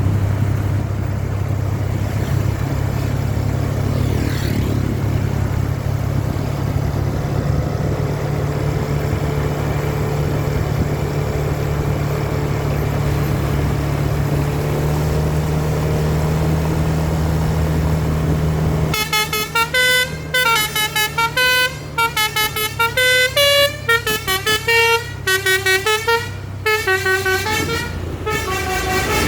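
A bus engine running steadily with a low drone; about two-thirds of the way in, a multi-tone telolet basuri horn starts playing a fast melody of short notes stepping up and down in pitch.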